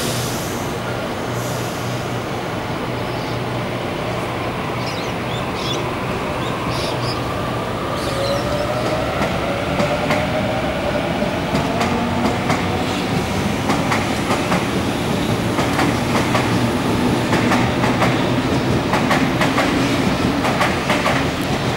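Sydney Trains Waratah electric train A15 pulling away: its traction motors whine and rise in pitch as it gathers speed. Its wheels click over rail joints, the clicks growing thicker toward the end.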